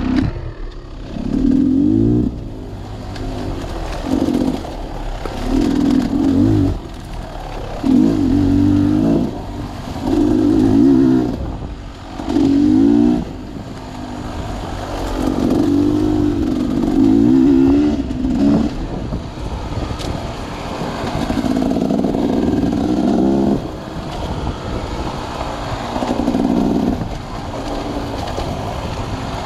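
Dirt bike engine revving in repeated surges as the throttle is opened and shut, its pitch climbing and dropping over and over.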